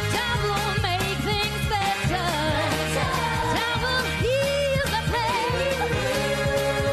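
Live soul-pop band performance: a woman singing lead with backing vocals over drums, bass and electric guitar, with a brass and saxophone section.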